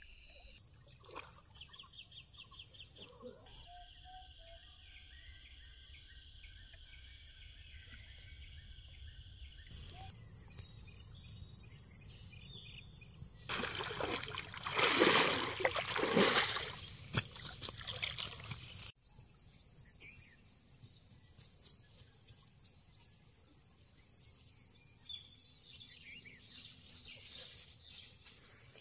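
Steady shrill buzzing of insects, with a hooked fish thrashing and splashing at the water's surface for several seconds in the middle as it is landed by hand.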